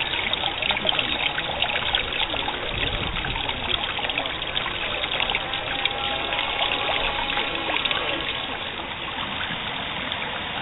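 Pool water trickling and lapping at the edge of an outdoor swimming pool, a steady run of many small splashes.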